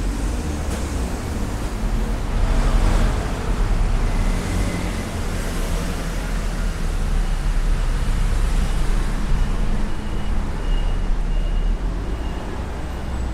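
Road traffic on a busy city street: engines running and tyres passing in a steady rumble, with one vehicle passing louder about two to three seconds in.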